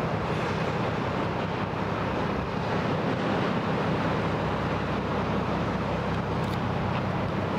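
Steady low drone of ships' diesel engines under a constant noisy hiss, without change in level.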